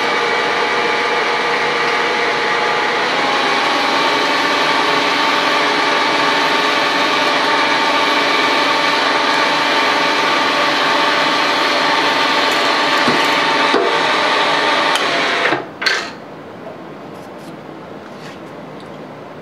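Milling machine spindle running steadily with a drill bit in its chuck, drilling a 3/16-inch through hole: a steady machine hum with a whine. About fifteen seconds in it stops, with a couple of brief clicks.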